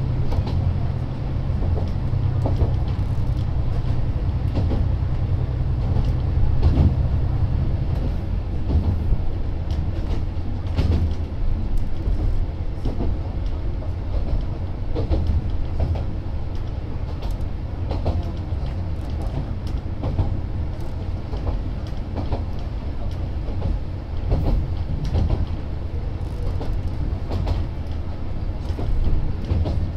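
Isumi Railway 200-series diesel railcar running, heard inside the car: a steady engine drone under irregular clacks of the wheels over rail joints. About eight seconds in, the engine's low note drops away.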